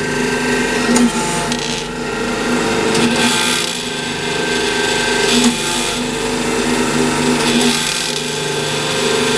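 Blohm surface grinder's hydraulic unit running: the pump hums and buzzes with a harsh, hissing vibration that swells and eases every second or two. The vibration is the fault being traced, which the owner wonders is down to too much pressure from a missing or maladjusted valve.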